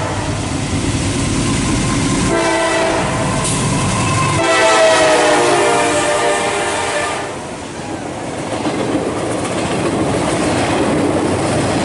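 A CSX freight train's locomotive horn blows a long chord, starting about two seconds in and shifting pitch partway through. After that the horn stops and the loud rumble and clatter of the passing double-stack freight cars go on.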